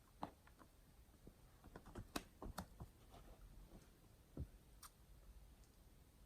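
Near silence with faint, scattered small clicks and taps, most of them in the first three seconds and two more about four and a half seconds in.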